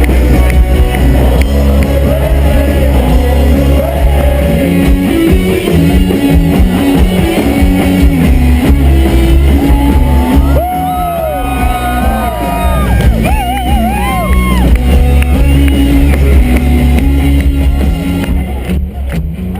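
Loud rock music with a heavy bass line and stepping guitar notes. A singer's voice comes in about halfway, and the music fades down near the end.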